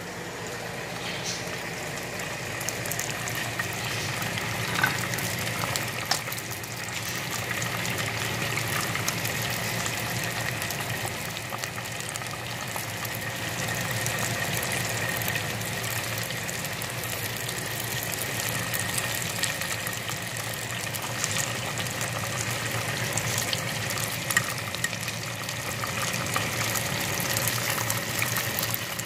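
Chicken wings deep-frying in a pot of hot oil: steady sizzling and bubbling with scattered crackles and a few sharper pops.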